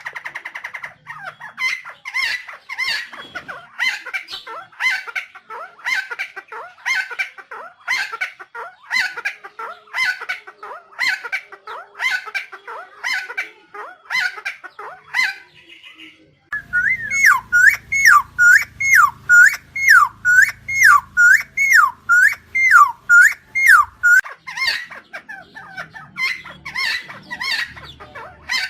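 Helmeted friarbird (Philemon buceroides) calling over and over. First comes a run of quick repeated notes. After a brief break about 16 s in, louder notes that dip and rise follow at a little over one a second, over a low hum, before the quicker notes return near the end.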